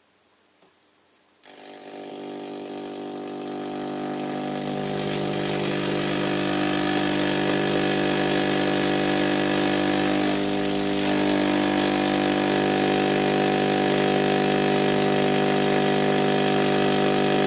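An 811A vacuum tube Tesla coil's spark discharge starts about a second and a half in with a steady, deep buzz. It grows louder over the next few seconds as the voltage is turned up, then holds steady while streamers break out from the top terminal.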